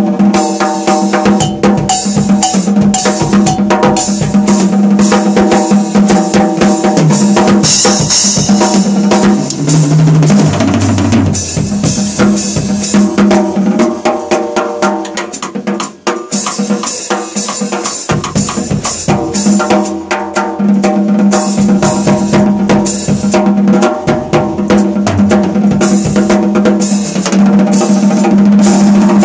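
14x7 O.N. Custom Hybrid stave snare drum (maple, Burma blackwood and rosewood shell) played with wooden sticks in fast, dense strokes, the drum ringing on a steady note under the hits. About ten seconds in, a short run of lower drum notes steps down in pitch.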